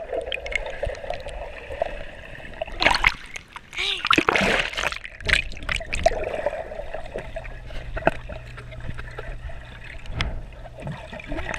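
Swimmers moving underwater in a swimming pool, heard from below the surface: muffled sloshing, splashes and gurgling bubbles, with the loudest bursts about three to five seconds in. A low steady hum runs through the second half.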